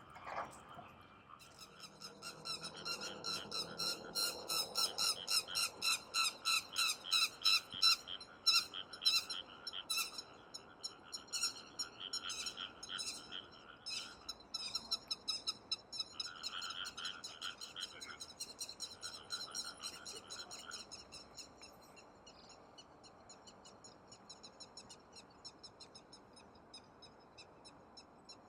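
Frogs calling in a flooded rice paddy: a chorus of rapid, repeated croaks that builds over the first few seconds, is loudest about eight seconds in, and dies away about twenty seconds in.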